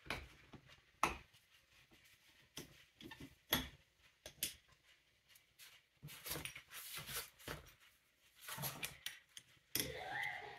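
Faint, scattered metal clicks and taps of a screwdriver and small carburetor parts being handled on a desk as the needle valve seat is screwed into a Ford 8N carburetor body.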